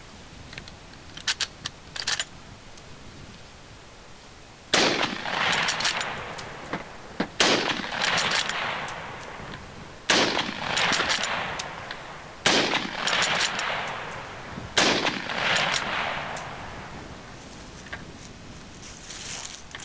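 A 1918 Gewehr 98 Mauser bolt-action rifle in 8x57mm is fired five times, about two and a half seconds apart. Each shot trails off in a long echo, and the bolt clicks as it is worked between shots. Before the shooting, a few sharp metallic clicks come from cartridges being loaded from a stripper clip.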